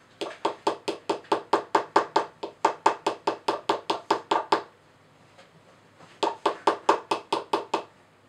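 Small hammer tapping rapidly on a chisel set into a plaster dig block from a dinosaur excavation kit, about six sharp strikes a second. There are two runs of tapping, the first about four seconds long, then a short gap, then a shorter second run.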